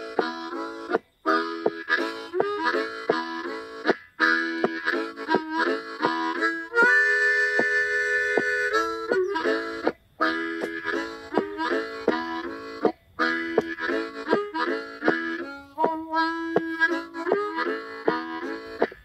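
Blues harmonica playing a fast, rhythmic tune of short chugging chords. A chord is held for about two seconds near the middle, and the playing breaks off for a moment several times.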